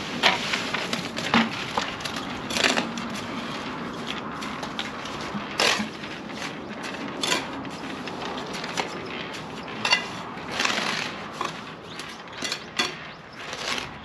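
Wet cement mix being scraped and spread across a concrete roof slab with a hand tool: irregular rasping strokes, some short and sharp, some longer.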